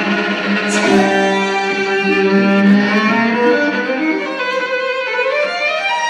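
Violin played live, heard from the audience: a bowed melody moving from note to note over a steady low note held underneath.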